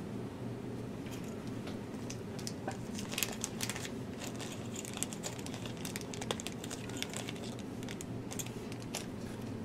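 A small plastic component bag crinkling and rustling, with irregular light clicks, as a 68K resistor is taken out of it. A steady low hum runs underneath.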